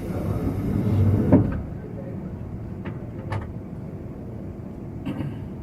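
Cabin sound of a JR 185 series electric train slowing for its station stop: a steady low rumble. For about the first second and a half a louder hiss rises, ending in a sharp clunk, and a few single knocks follow later.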